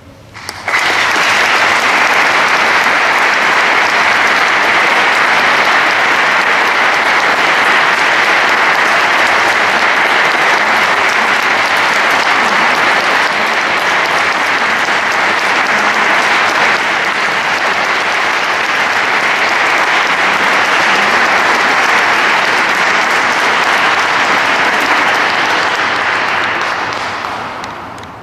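Audience applauding at the end of a choir piece: the clapping starts about half a second in, holds steady and dies away near the end.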